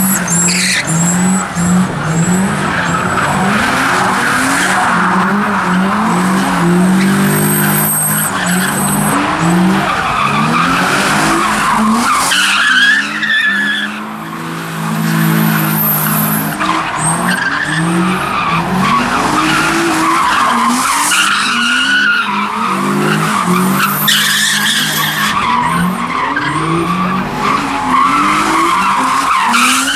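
Car engines revving hard, their pitch climbing and falling about once a second, with tyres squealing and screeching as the cars spin donuts.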